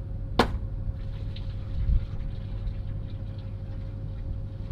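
A steady low engine rumble with a faint, even whine running over it, and one sharp click about half a second in.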